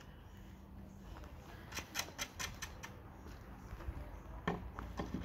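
Light, irregular clicks and knocks from hand work on a wooden plank door and its hinge hardware, in a cluster about two seconds in and another about four and a half seconds in.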